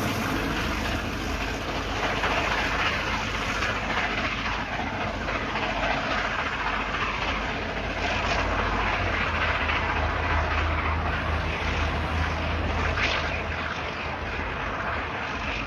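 A train running past on the rails, a steady rolling noise with a low hum that eases away near the end.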